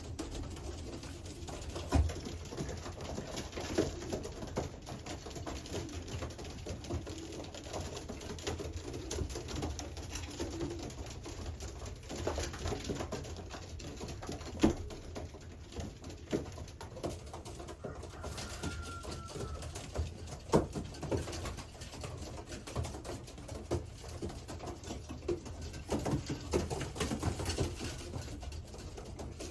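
Racing pigeons (cock birds) cooing in a loft, a steady low murmur with scattered sharp taps and clicks throughout.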